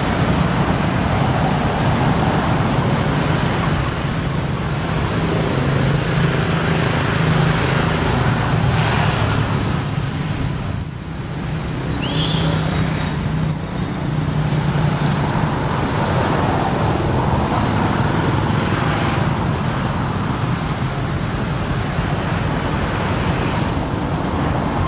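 Steady road traffic noise with vehicle engines running, and a brief high-pitched sound about twelve seconds in.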